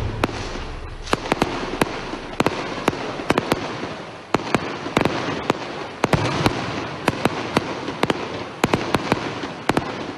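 Aerial firework shells bursting overhead: a rapid, irregular series of sharp bangs over a continuous crackle of burning stars.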